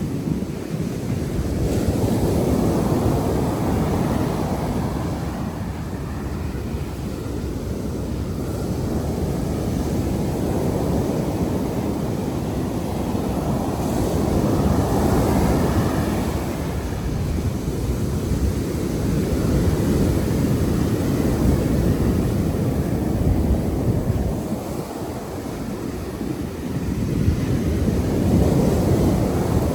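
Surf washing onto the beach, mixed with wind buffeting the microphone: a heavy rushing that swells and eases every few seconds.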